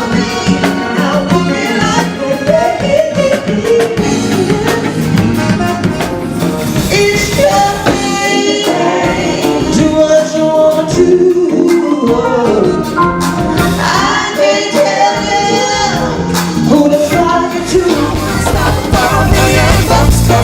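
Live soul band playing a slow song, with voices singing over the backing.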